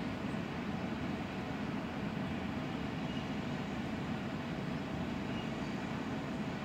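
Freight train of covered hopper cars rolling past, a steady low noise of steel wheels running on the rails.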